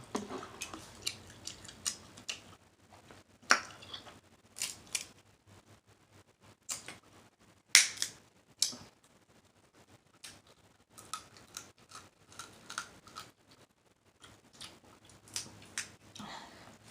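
Close-miked eating of a seafood boil of snow crab legs and shrimp: a string of irregular sharp clicks and snaps. The loudest come about three and a half and eight seconds in.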